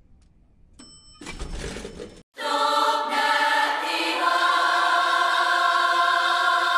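Lift arrival chime ringing briefly about a second in, then a short whoosh like sliding doors opening, then a loud held choir chord sung on one sustained 'aah' for the rest.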